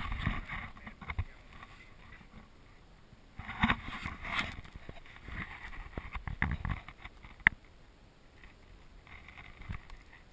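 Water splashing and lapping against a kayak at the waterline, with irregular knocks and rustles from the kayak and gear, louder for a few seconds around the middle, and one sharp click a little after.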